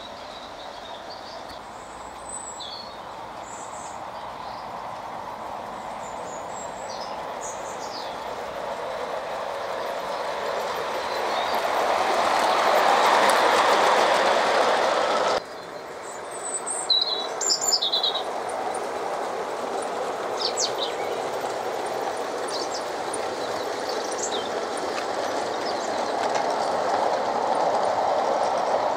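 Battery-powered LGB garden-scale train running on outdoor track, its wheels rolling over the rails and growing louder as the wagons pass close by. The sound cuts off sharply about halfway through, then another train's rolling builds up again. Birds chirp now and then.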